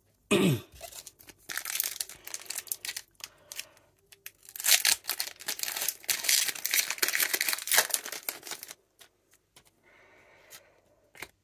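A Pokémon trading-card booster pack's foil wrapper being crinkled and torn open by hand, loudest from about four and a half to nine seconds in. A brief low falling hum comes right at the start.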